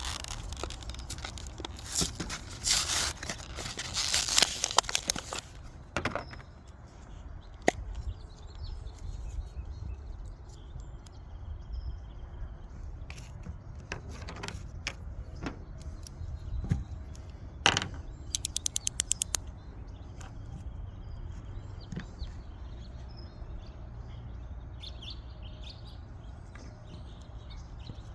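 Hands opening a JB Weld SteelStik epoxy putty tube and cutting off a piece. A burst of crackling, rustling packaging comes a few seconds in, followed by scattered sharp clicks and taps, and near two-thirds through a quick even run of about a dozen clicks.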